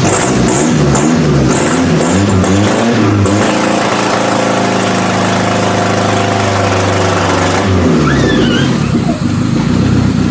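Toyota Camry demolition derby car's engine revved up and down several times, then held at high revs for about four seconds before dropping back. The engine is running again after an electrical no-start, on limited wiring with power fed straight to the engine computer; it runs, though not great.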